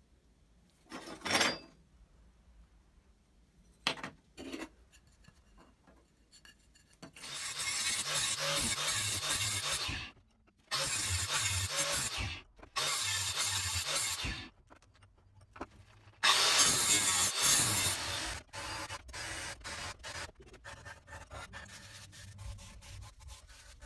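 A hand-held abrasive disc grinding the edge of an aluminium bow cam clamped in a vise, in four loud passes of a few seconds each that start and stop abruptly. Before them come a few short scrapes and clicks of hand work on the metal, and after them scattered short scrapes.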